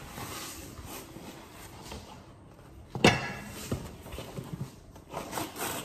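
Cardboard box and plastic packaging being handled while unpacking a meal kit: rustling and scraping, with a sharp knock about three seconds in and a few lighter knocks near the end.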